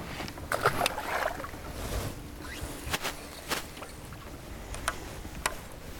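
A small largemouth bass is tossed back into the water with a short splash about half a second in. Scattered sharp clicks and knocks follow as a fishing lure is handled aboard a bass boat, over a low steady rumble.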